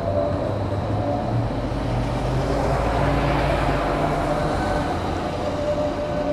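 Tram running past, the rolling noise swelling to its loudest about three seconds in, under a low motor hum that rises slowly in pitch.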